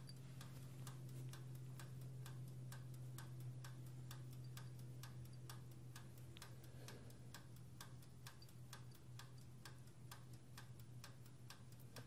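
Cuisinart air fryer toaster oven's mechanical timer dial ticking evenly, a few ticks a second, while it counts down the set cooking time, over a steady low hum.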